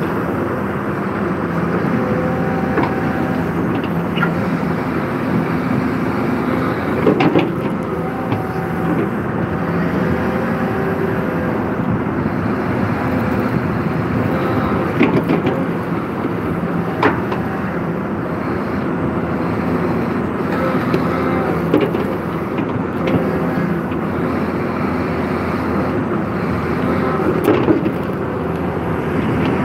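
Excavator's diesel engine running steadily under digging load, heard from the operator's cab as the bucket digs and dumps sand and soil. A handful of sharp clanks stand out, about seven, fifteen, seventeen and twenty-seven seconds in.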